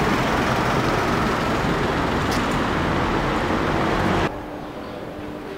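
Street traffic noise: a loud, steady rush of passing vehicles. About four seconds in it cuts off sharply to quieter street background.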